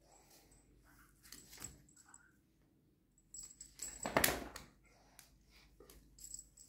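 A Kangal dog moving about on a tile floor: light metallic jingling and scattered clicks, with one louder knock about four seconds in.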